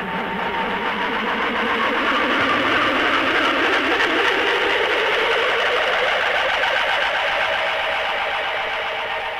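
Recorded music from a 1986 7-inch single: a dense, wavering, noisy wash of sound that swells over the first couple of seconds and starts to fade out near the end.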